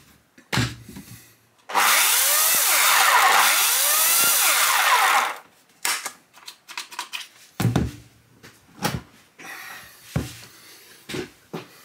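Makita UC4030A electric chainsaw run briefly on the bench: the motor and chain start suddenly about two seconds in, run for about three and a half seconds and stop abruptly. A series of clicks and knocks from handling the saw follows.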